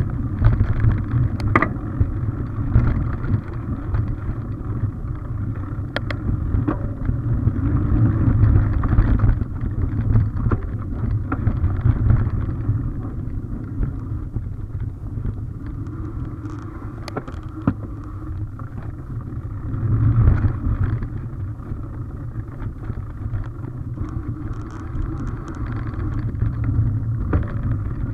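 Mountain bike riding a sandy forest trail, heard from a camera on the bike or rider: a steady low rumble of tyres on dirt and air moving past the microphone, with a few sharp clicks and rattles as the bike goes over bumps.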